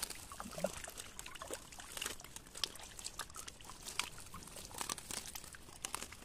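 Freshly caught mullet flapping on a wet nylon net as hands pick them out, giving a run of irregular small wet slaps and clicks with rustling of the net mesh.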